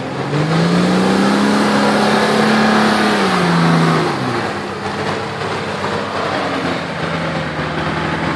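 Nissan Patrol 4x4 engine revving hard as the vehicle churns through a deep mud rut. The revs climb in the first second, hold high for about three seconds, drop back about four seconds in, then stay steady as it pulls out and drives on.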